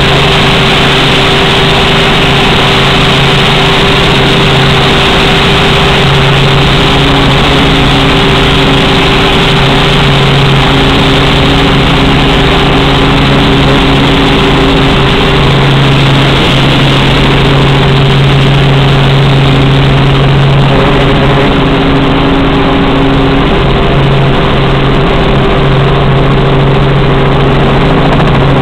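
Robinson R44 Raven helicopter's piston engine and rotor running loud and steady, heard from inside the cabin as it descends to land, with a constant low hum under the noise.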